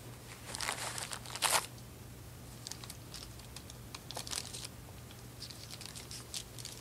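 Tissue paper crinkling and rustling in the hands as it is unwrapped from a small object. It comes in several short bursts, the loudest about a second and a half in.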